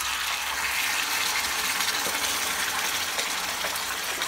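Wet, pressure-cooked mutton curry poured from a pressure cooker into hot oil in a frying pan, the oil sizzling steadily as it hits. The sizzle starts suddenly with the pour.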